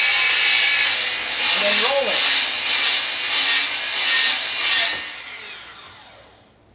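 DeWalt DCS361 cordless 7-1/4-inch sliding compound miter saw cutting through PVC pipe as the pipe is rolled against the spinning blade. The cutting noise swells and eases about twice a second. About five seconds in, the cutting stops and the sound dies away over a second or so as the blade winds down.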